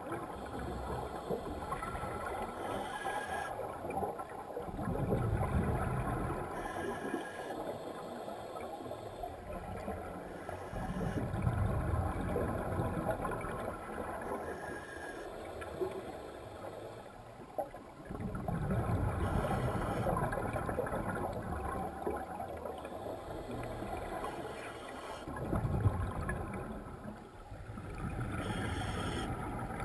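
Underwater bubbling of divers' exhaled air venting from double-hose regulators, coming in surges about every six to seven seconds over a steady underwater hiss.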